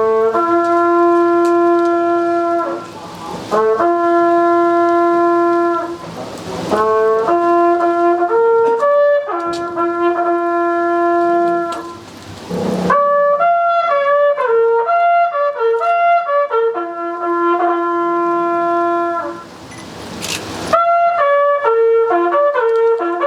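A lone bugle plays a slow ceremonial call in several phrases: long held notes joined by quicker runs of notes, with short pauses between the phrases.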